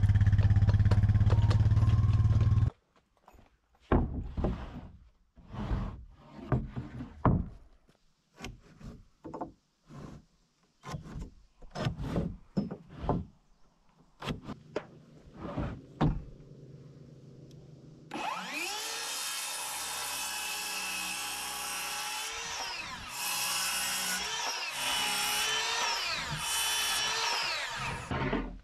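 A loud low drone stops sharply a few seconds in, followed by scattered knocks and taps of pine 2x4s being handled and marked. About eighteen seconds in, a cordless circular saw starts whining and runs through several cuts in the pine boards for about ten seconds, its pitch dipping under load and rising again.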